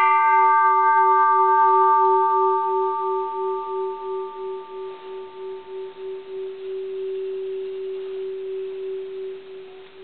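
Mid-1800s Japanese bronze Buddhist temple bell ringing on after a single mallet strike. Its higher overtones fade out over the first few seconds, while one low hum lingers with a slow, wavering throb.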